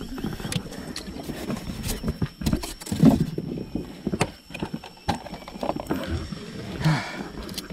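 Irregular knocks, clunks and clatter of gear against an aluminium boat's hull and wooden floor, with the loudest knock about three seconds in.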